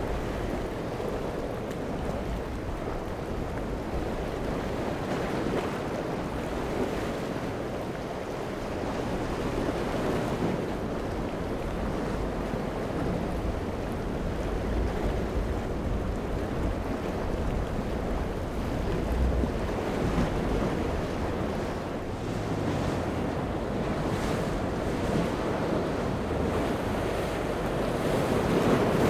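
Steady wind buffeting the microphone over the wash of choppy waves and a fast boat's hull spray, growing a little louder near the end.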